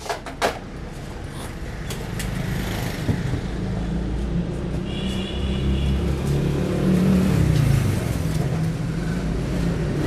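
A steady low engine rumble that grows louder about two seconds in and keeps going, with a few sharp clicks at the start and a brief high tone near the middle.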